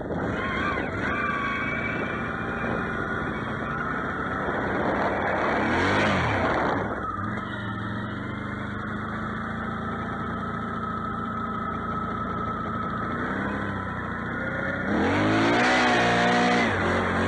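Can-Am Outlander XMR 650 ATV's V-twin engine running under throttle while ridden. It revs up and drops back about six seconds in, runs steadier, then revs hard again near the end.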